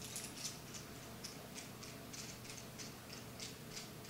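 Faint, irregular light ticks and clicks, a few a second, from small stainless-steel brewing fittings (a thermowell and its parts) being handled in the hands.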